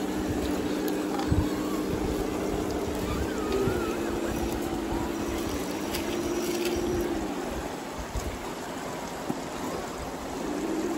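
Electric motors and gearboxes of scale RC crawler trucks whining steadily as they drive through a shallow rocky river, over the sound of the flowing water. The whine shifts slightly in pitch, fades about three-quarters of the way through, and picks up again near the end.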